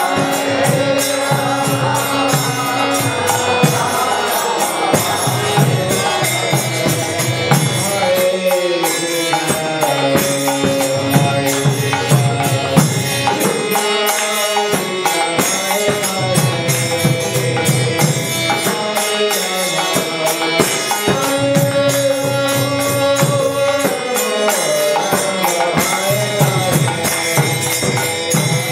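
Kirtan: a man singing a devotional chant to his own Bina harmonium, its reeds sustaining chords under the voice, with a steady percussive beat running through.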